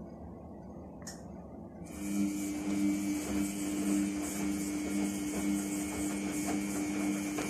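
A steady mechanical hum starts suddenly about two seconds in and runs on evenly, with a hiss above it.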